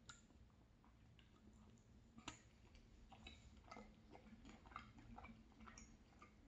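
Faint chewing and wet mouth sounds of someone eating ice cream dessert, with scattered soft irregular clicks.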